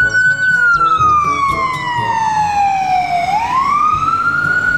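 Ambulance siren wailing: the tone holds high, falls slowly over about three seconds, then rises again near the end.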